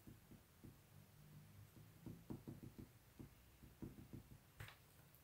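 Near silence: room tone with a scatter of faint, soft clicks and knocks.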